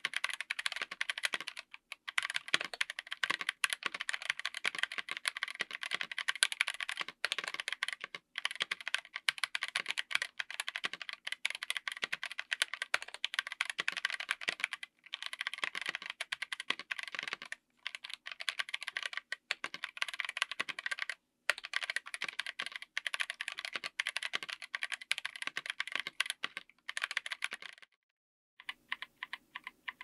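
Fast typing on a mechanical keyboard with Gazzew U4T 65g tactile switches, MT3-profile PBT keycaps, an FR4 plate and an aluminium case: a dense run of keystroke clacks with a few short pauses. It stops near the end, then slower, separate keystrokes follow.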